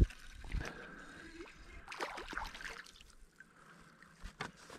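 Water splashing and sloshing as a hooked crappie is reeled to the surface and swung out of the water. There is a knock right at the start and two short knocks near the end against the kayak.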